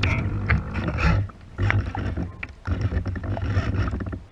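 Wind buffeting the microphone on the deck of a 1.8 m HobbyKing Monsoon RC sailing yacht under way, coming and going in gusts, with water splashing against the hull.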